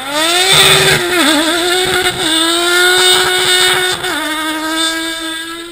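Ice-racing car's engine revving hard as the car accelerates past on the ice track. The pitch climbs at the start, wavers about a second in, drops slightly about four seconds in, then fades as the car pulls away.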